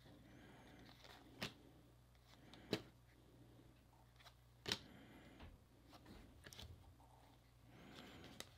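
Faint handling of a stack of baseball trading cards: cardboard cards slid and flicked from the front of the pile to the back, with three short sharp snaps in the first five seconds over a faint low hum.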